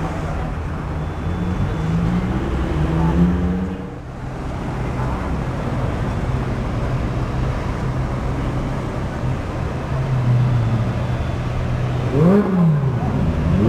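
Lamborghini engines idling and creeping along in slow traffic: a steady engine drone, with a short rising rev about three seconds in and a few quick revs rising and falling near the end.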